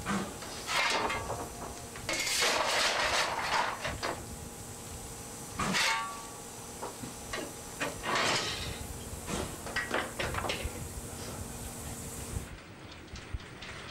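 Coal being shovelled into a steam locomotive's firebox: repeated scrapes and clanks of the steel shovel, about one every second or two, over a faint steady hiss of steam.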